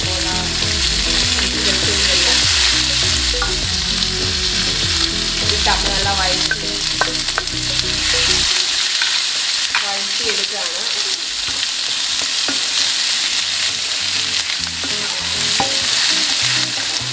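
Sliced onions, dals and dried red chillies sizzling in hot coconut oil in a nonstick wok, stirred with a wooden spatula that scrapes and knocks against the pan. A low hum runs under the first half and stops about halfway through.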